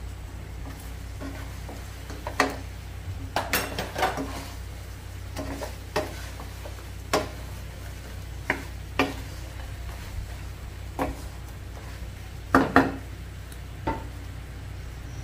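Wooden spatula knocking and scraping against a nonstick frying pan while turning chicken pieces in a sticky honey glaze: about a dozen sharp knocks spaced roughly a second apart, two close together near the end, over a steady low hum.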